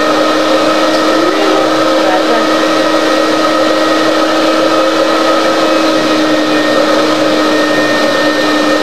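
Steady whir of a small electric motor, with a constant hum tone underneath and no change in level.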